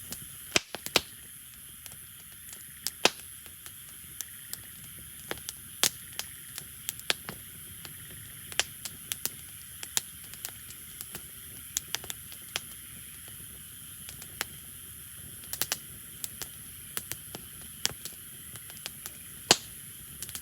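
Wood campfire crackling: irregular sharp pops and snaps from the burning firewood, a few much louder than the rest, over a low steady hiss.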